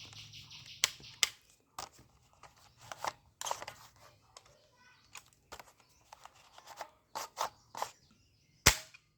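Scattered clicks and knocks of a plastic toy gun being handled, the sharpest one near the end, after a steady high buzz in the first second.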